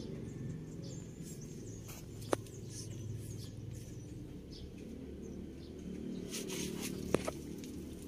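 A low steady rumble, with two sharp clicks, one about two seconds in and one near the end, and faint scattered high chirps.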